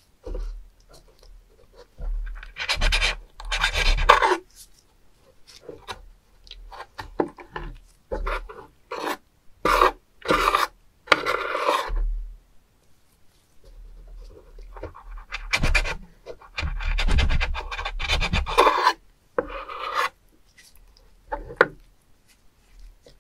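Kitchen knife scraping and slicing against a wooden cutting board as spoon worms are cut open and cleaned. It comes in irregular scraping strokes, some about a second long, with short knocks and clicks between them.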